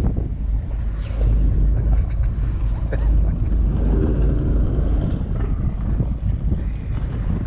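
Wind buffeting the microphone on open water, a steady low rumble with a noisy hiss over it.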